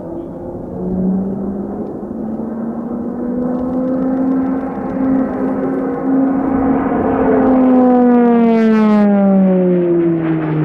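Pilatus PC-21 turboprop trainer flying past: its five-blade propeller drones with a stack of steady tones that grows louder, peaks about eight seconds in, then falls sharply in pitch as the aircraft passes.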